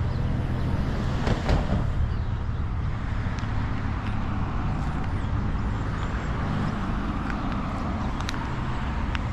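Steady noise of motor traffic passing on a busy street, a continuous rumble with a low hum, with a few faint clicks.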